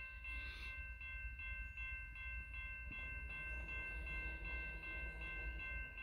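Railroad grade-crossing bell ringing rapidly, about three strokes a second, with its ring held between strokes. Under it runs a steady low rumble from the approaching Union Pacific diesel locomotives.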